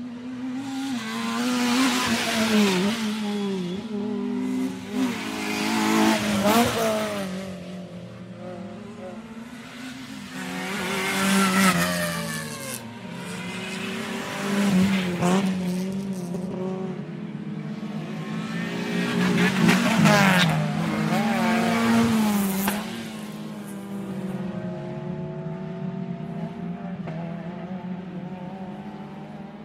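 Sports car engines racing, revving and sweeping up and down in pitch as cars pass, swelling loud several times.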